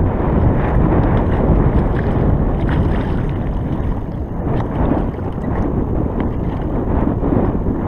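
Wind buffeting the microphone in a heavy, uneven rumble, with a hooked short striped bass splashing at the surface beside the boat.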